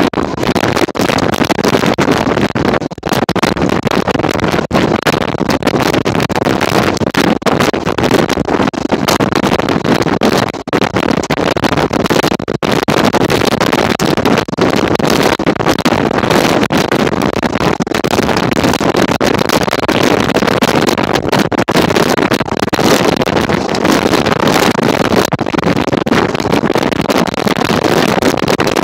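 Ride noise aboard an open-topped 1934 English Electric Blackpool boat tram running steadily along the line: wheel-on-rail rumble under heavy wind on the microphone, with frequent brief buffets.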